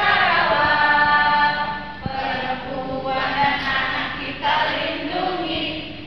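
A group of students singing together in Indonesian, a cheer song sung in phrases by many voices at once.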